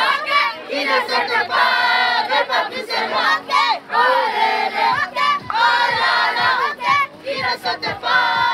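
A group of young boys shouting and chanting together in celebration, many voices overlapping.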